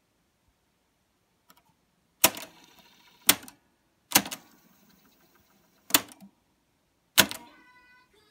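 Sony TC-4350SD cassette deck's solenoid-operated tape transport clacking five times as its buttons are pressed, each a sharp mechanical clack with a short rattle after it.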